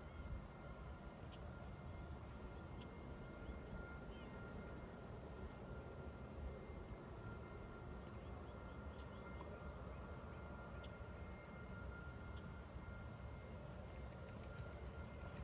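Quiet outdoor ambience: a bird giving short, high, falling chirps every couple of seconds over a low steady rumble and a faint steady high tone.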